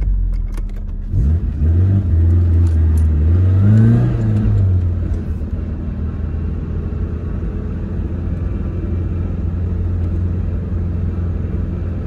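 Tofaş Doğan SLX's engine pulling away: revs climb from about a second in, drop back at a gear change about four and a half seconds in, then hold steady as the car cruises, heard from inside the cabin.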